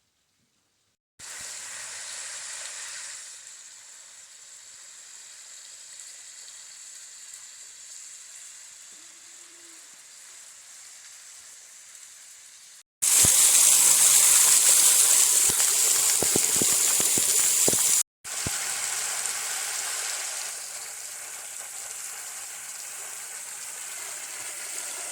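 Steady rushing water, heard in three abrupt sections: moderate at first, much louder for about five seconds in the middle, then moderate again.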